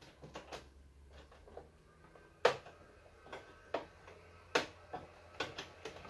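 Scattered clicks and taps of a VGA cable's connector being fitted into the port on the back of an LCD monitor, about seven of them from the middle on, the first the loudest.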